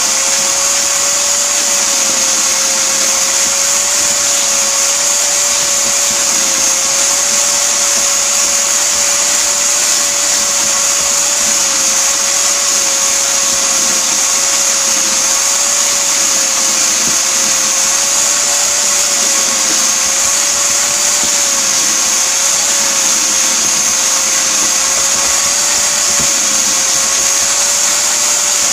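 Shop-Vac wet/dry vacuum running steadily at full speed: a held motor whine over a loud rush of air.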